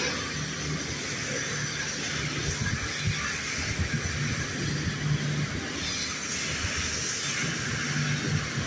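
Large boat-stacking forklift running as it drives slowly, a steady hiss over a low hum.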